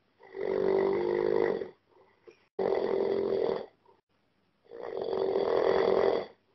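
A man snoring: three snores, each a little over a second long, with pauses of about a second between them.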